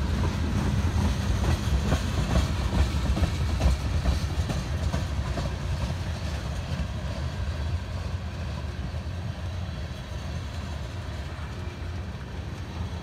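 Freight train cars (gondolas, covered hoppers and tank cars) rolling past, wheels clicking over rail joints above a steady low rumble. The clicking is strongest in the first few seconds, then the whole sound slowly fades.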